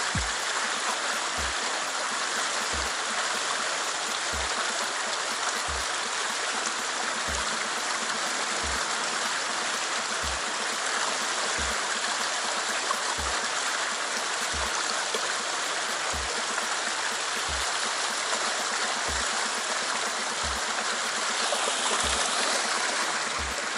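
Rushing stream water pouring over rocks into a pool: a steady, even rush, a little louder near the end. A soft low thump repeats under it about every second and a half.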